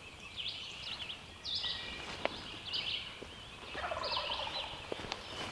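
A wild turkey gobbler gobbling once, about four seconds in, over songbirds chirping and singing.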